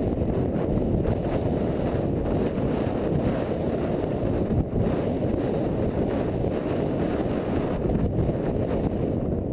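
Heavy wind buffeting on a rider-mounted camera's microphone at a gallop, a steady low rumble. Faint hoofbeats of the galloping racehorse on the dirt track sound under it.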